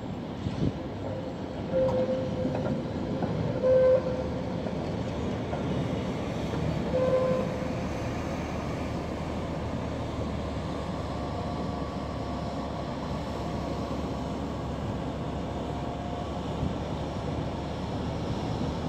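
Two-car Tatra T3 tram running on street rails through a curve. Its wheels give short squeals about two, four and seven seconds in, the loudest near four seconds. A fainter steady whine follows as the cars pass.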